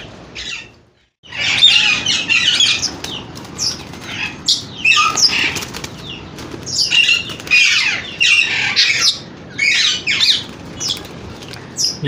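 A group of caged Senegal parrots calling with many short, shrill squawks and whistles that sweep up and down in pitch, with wings flapping.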